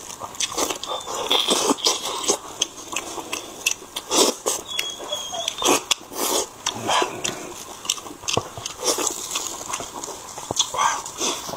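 Close-miked eating of saucy pork on the bone: wet chewing, lip-smacking and sucking, in a run of irregular sharp smacks and clicks.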